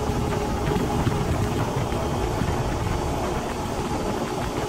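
Small fishing boat's engine running steadily.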